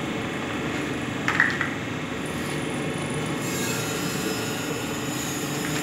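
Small plastic injection moulding machine running with a steady hum, a short click a little over a second in, and a hiss that comes in just past halfway.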